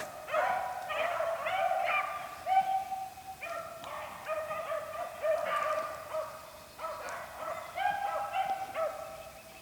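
A pack of beagles baying as they run a rabbit's track, several dogs' voices overlapping continuously, growing fainter near the end.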